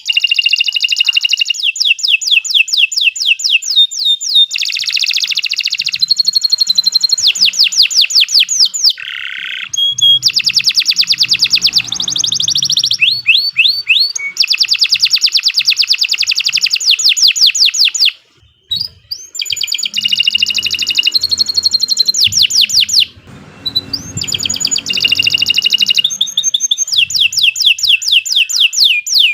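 Domestic canary singing a long song of rapid trills and rolling repeated notes, with a brief pause about 18 seconds in.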